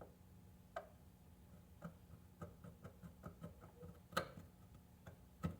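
Faint, irregular small clicks and ticks of a logic probe tip touching and tapping along the pins of an IC on a pinball sound board, with a sharper click about four seconds in and another near the end, over a faint low hum.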